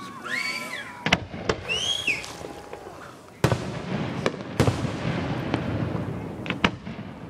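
Aerial fireworks shells bursting: a series of sharp bangs, the two loudest about three and a half and four and a half seconds in, with a rolling rumble between them.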